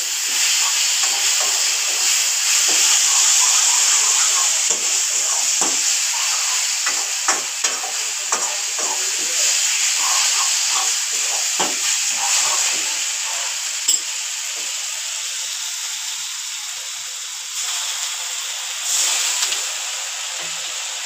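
Masala sizzling as it is fried down in an aluminium kadai on a gas stove, with a metal spoon scraping and knocking against the pan as it is stirred.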